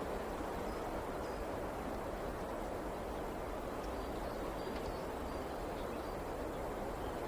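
Steady rushing of a river, with faint short bird chirps here and there.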